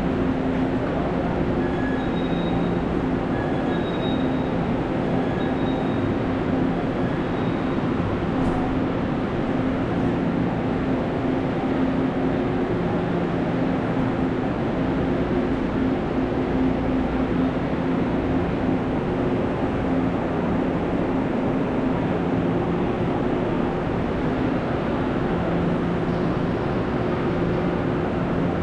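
Taiwan Railway passenger train at the platform: a steady mechanical hum and rumble holding a few low steady tones, with faint short high beeps repeating a few times in the first several seconds.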